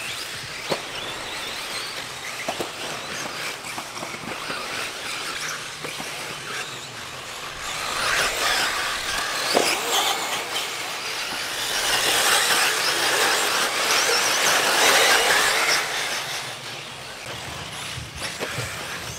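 Electric RC buggies racing on a dirt track: high-pitched motor and drivetrain whine with tyres on dirt. It grows louder as a buggy passes close, mostly between about 8 and 16 seconds in, then fades.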